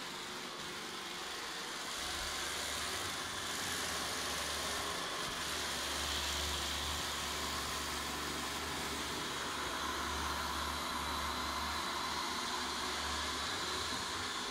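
Vorwerk VR200 robot vacuum cleaner running across a laminate floor, a steady whirring hiss from its suction fan and brushes. It gets a little louder about two seconds in as it comes close, with a low hum under it until near the end.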